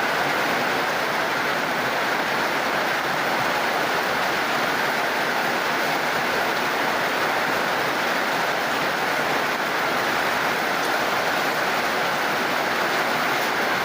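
Steady heavy rain: an even, unbroken hiss of falling water.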